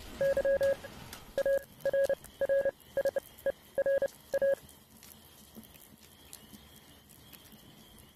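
A string of electronic beeps on one steady pitch, some short and some long in an uneven rhythm, stopping about four and a half seconds in. After that there is only faint hiss.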